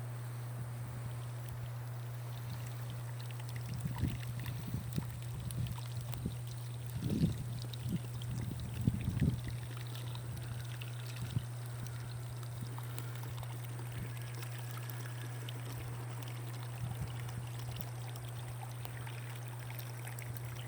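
Water running through a newly installed well system over a steady low hum, as the pump builds pressure toward its cut-off. A few knocks come between about 4 and 9 seconds in.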